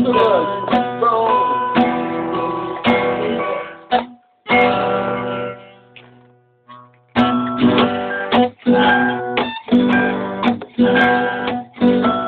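Guitar strumming chords, breaking off about four seconds in where one chord is left to ring out and fade, then strumming again about seven seconds in.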